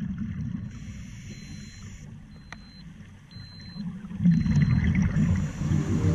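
Muffled underwater rumble picked up by a GoPro inside its waterproof housing, growing louder about two-thirds of the way through. A faint high-pitched tone comes and goes, and there are a couple of brief clicks.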